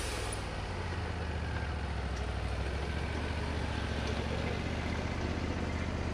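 Engine of a Wood-Mizer LT40 band sawmill running steadily. The high hiss of the blade cutting stops about a third of a second in as the blade clears the log, leaving the engine hum while the saw head travels back along the track.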